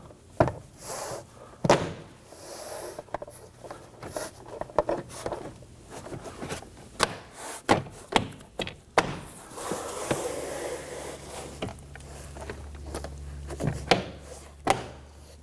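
Irregular clicks and knocks of a plastic interior door panel being handled and hung onto the upper edge of a car door.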